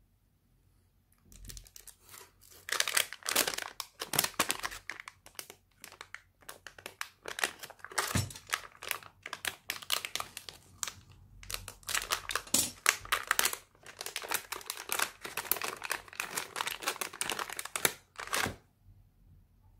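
Foil and plastic packaging bags crinkling and crackling as they are handled and opened, in irregular spurts starting about a second and a half in and stopping shortly before the end.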